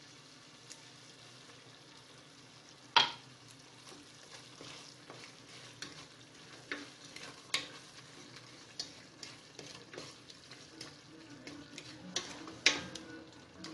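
Onion and chicken filling simmering and sizzling in a stainless-steel saucepan as sugar is stirred in with a wooden spoon. About three seconds in there is a single sharp knock. After that the spoon knocks and scrapes against the pan in irregular clicks.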